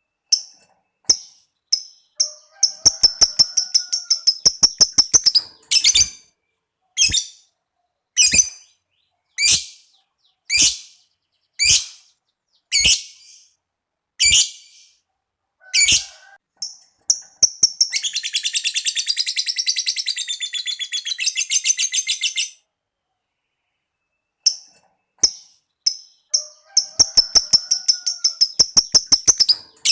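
Lovebird calling: sharp single chirps about once a second, a fast run of ticking notes (the keepers' 'ngetik') early on and again near the end, and a long unbroken chattering trill (the 'ngekek') lasting about four and a half seconds around two-thirds of the way through.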